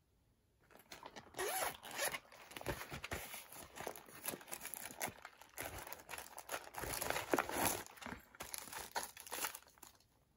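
A package being unwrapped by hand: a run of quick rasping rips and crinkles of packing material that starts about half a second in and stops near the end.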